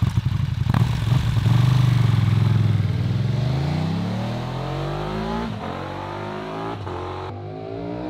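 KTM 1290 Super Duke R's V-twin on its original stock exhaust, pulling away and accelerating up through the gears. The revs climb, dip at shifts about five and a half and seven seconds in, and the sound fades as the bike moves off.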